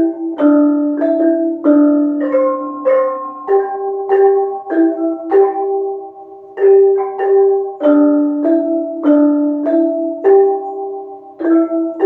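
Gamelan bonang kettle gongs struck by several players together in the simultaneous-stroke technique. Ringing bronze notes come at roughly two strokes a second, with several pitches sounding at once and a short pause just past halfway.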